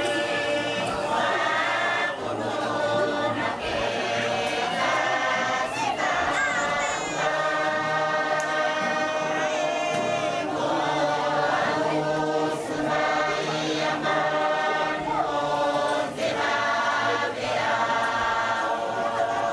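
A Tuvaluan fatele song: a large group singing together in harmony as a full choir, steady and loud throughout.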